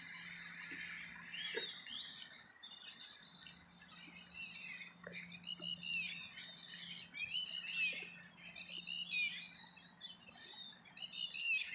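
Wild birds singing and chirping, with short twittering phrases repeated every second or two. A faint steady low hum runs underneath.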